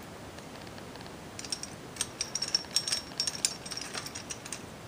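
Light, irregular metal clicks and clinks as the last bolt and its nylock nut are fitted and turned through the bead breaker's metal plates, starting about a second and a half in.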